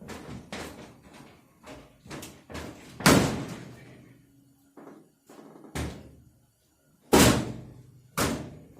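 Steel cab door of a 1948 Chevy Loadmaster truck being slammed shut several times, with smaller knocks and clunks between. The hardest slams come about three seconds in and twice near the end, each ringing briefly, as the door is closed to test its fit on reworked hinges.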